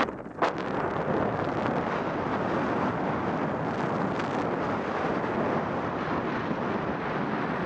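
Steady rush of wind over the microphone of a camera carried by a skier running down a groomed piste, with the skis hissing over the snow. A brief knock sounds about half a second in.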